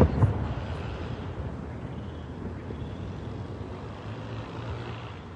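Aerial firework shell bursting with a last sharp crack or two at the very start, then a long low rumble of its echo that slowly fades away.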